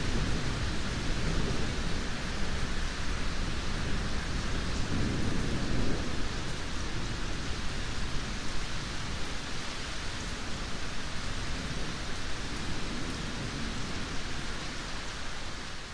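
Steady heavy rain with low rolling thunder rumbles underneath, swelling in the first second and again around five to six seconds in, then easing to softer rumbles.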